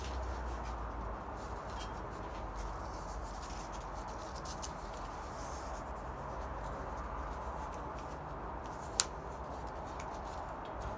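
Sanding belt being changed on a belt grinder: the abrasive belt rubbing and rustling as it is handled and threaded over the wheels, with scattered light clicks and one sharp click about nine seconds in.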